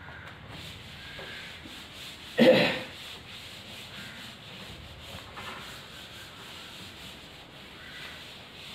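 Chalk writing being wiped off a blackboard: steady rubbing strokes across the board. One brief, much louder sound breaks in about two and a half seconds in.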